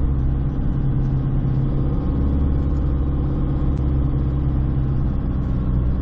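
Vehicle engine running steadily at moderate revs while driving through soft, loose sand, a continuous low drone.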